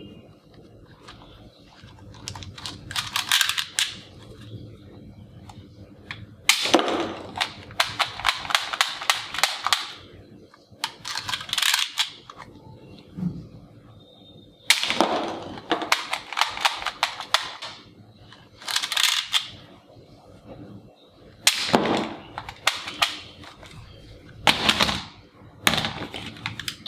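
Plastic toy AK-47 being fired repeatedly: about eight bursts of rapid rattling clicks, each from half a second to three seconds long, with short pauses between them.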